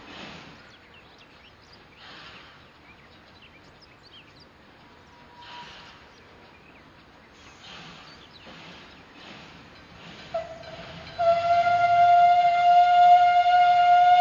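Steam-engine whistle blowing one long, steady note, starting about ten seconds in and becoming loud a second later. Before it there are only faint, soft puffs of noise.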